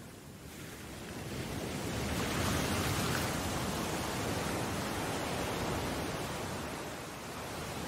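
A wash of steady hiss-like noise, with no tone or rhythm, that swells over the first couple of seconds, holds, and eases off near the end, in the manner of a surf or noise transition effect.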